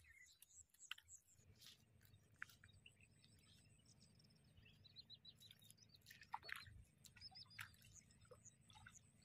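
Near silence with faint small-bird chirps and a few short clicks, over a low steady hum that comes in about a second and a half in.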